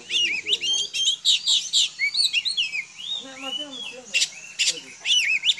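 Oriental magpie-robin (kacer) singing: a fast, varied stream of chirps and whistled notes, broken by a few sharp, harsh notes.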